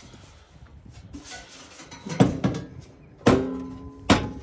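Metal knocking and clanking while working on the blower motor: four sharp knocks in the second half. The loudest, about three seconds in, leaves a brief metallic ring.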